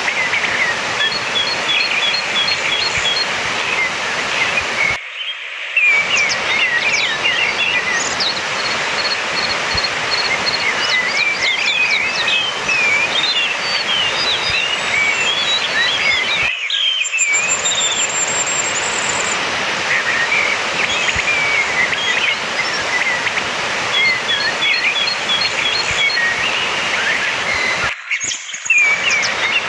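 Orange-headed thrush song: a varied run of short whistled phrases, chirps and rapid repeated notes, over a steady hiss of background noise. The sound cuts out completely three times, briefly, at the joins of the recording.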